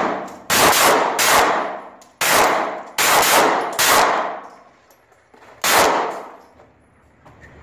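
Smith & Wesson Bodyguard 380 pocket pistol firing .380 ACP rounds: six sharp shots at about one a second, with a longer pause before the last, each ringing on in the echo of an indoor range.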